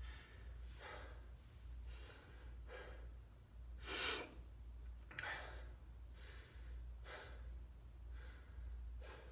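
A man breathing hard as he catches his breath during a rest after exercise, with breaths coming about once a second. The loudest breath comes about four seconds in.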